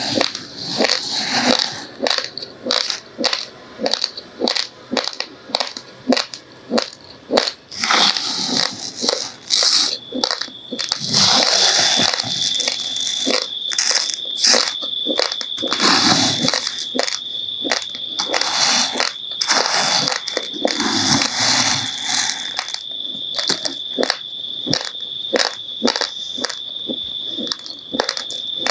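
Raw, uncooked rice grains being crunched between the teeth: sharp, crackly crunches about two a second with gritty grinding between them. A faint steady high-pitched whine joins about ten seconds in.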